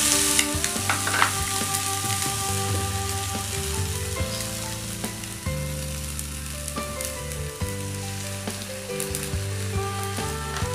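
Macaroni, sausage slices and scrambled egg sizzling in a hot frying pan with a spatula stirring, under background music with sustained notes.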